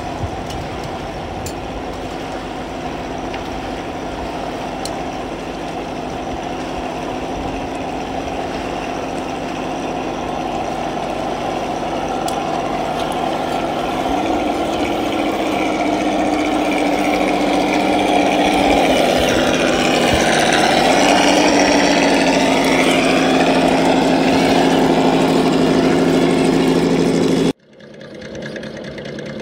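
Simulated V8 engine sound from the sound module of a 1/10-scale Traxxas TRX-4 RC crawler, a steady idle that grows louder. Its pitch steps up about halfway through, dips, and steps up again, and the sound cuts off suddenly near the end.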